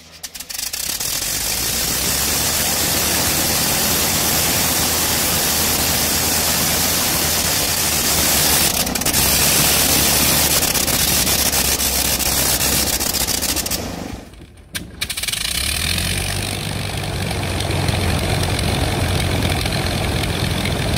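Le Rhône 9C nine-cylinder rotary aero engine on a test stand catching about a second in, then running loud and steady with a fast, rough firing beat. After a brief break two-thirds of the way through, the engine of a Fokker Dr.I-style triplane runs with a deeper, heavier beat.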